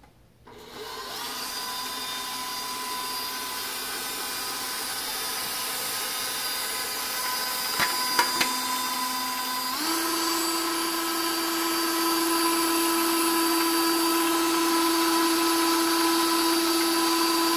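Electric stand mixer running with its wire whisk whipping heavy cream: the motor starts about half a second in and hums steadily, then steps up to a higher speed about ten seconds in. A couple of light clicks come shortly before the speed change.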